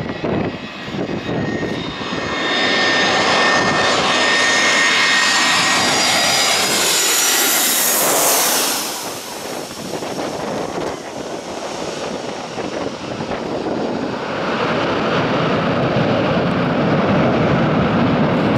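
Airbus A320-214's CFM56 turbofans on short final: a whine with steady fan tones grows loud as the jet passes low overhead about eight seconds in, then drops away. From about fourteen seconds a broad roar builds as reverse thrust is applied on the wet runway after touchdown.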